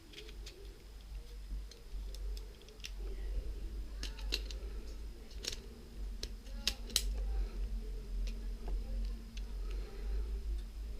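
Scattered small plastic clicks and taps from handling a camcorder and pressing its buttons, irregular, with a few louder clicks in the middle, over a steady low hum.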